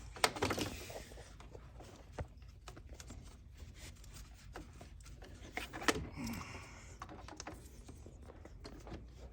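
Faint handling noises as a hose or line is worked into place under the hood: a few light clicks and rubs over a low steady hum.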